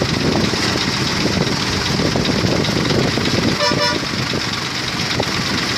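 Mobile crane engines running steadily under load, with one short vehicle horn toot about three and a half seconds in.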